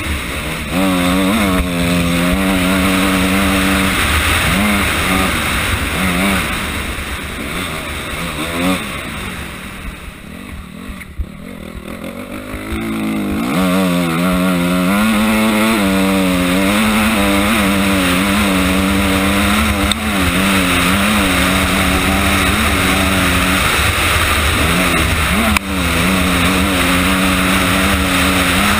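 Honda CRF250R's single-cylinder four-stroke engine running hard off-road, its note rising and falling with the throttle. About nine seconds in it drops away for a few seconds as the rider backs off, then picks up again and pulls steadily.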